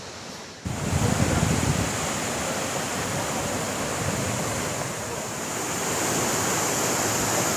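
Steady rush of a waterfall's falling water, cutting in suddenly just under a second in.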